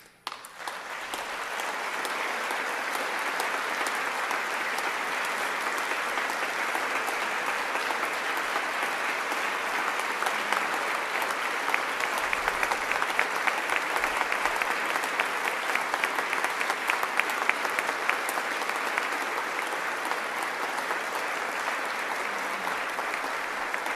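A large audience applauding: dense, steady clapping that starts about half a second in and keeps up at an even level.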